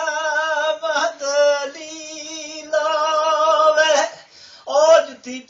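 An elderly man singing a Punjabi folk song unaccompanied, drawing out long, wavering notes without words. He breaks off briefly about four seconds in, then comes back with a rising note.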